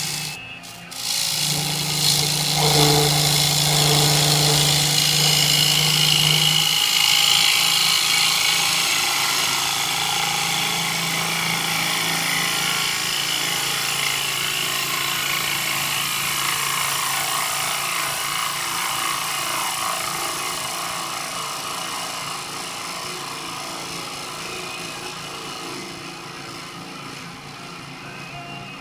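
Gouge cutting a spinning cherry bowl on a wood lathe: a steady hissing scrape of the tool edge on the wood. It starts about a second and a half in with a low hum under it for the first few seconds, and slowly grows quieter toward the end.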